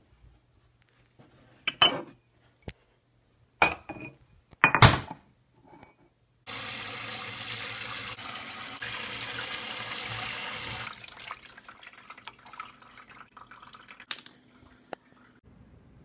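A few sharp clunks, then a kitchen tap running into a sink in a steady rush for about four seconds before it is turned off, followed by faint clinks.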